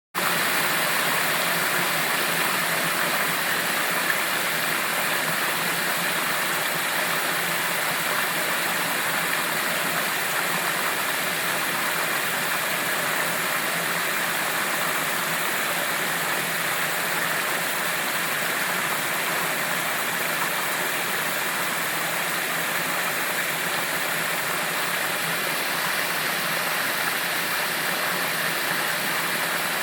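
Water rushing steadily through a small irrigation sluice gate, a constant even splashing flow.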